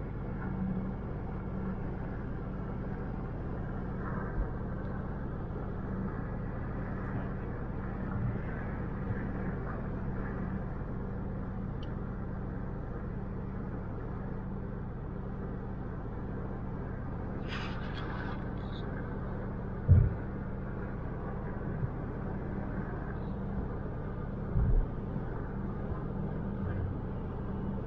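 Steady drone of a car's engine and tyres heard from inside the cabin while cruising on a highway, with a low hum. A couple of short low thumps break in, the loudest about two-thirds of the way through.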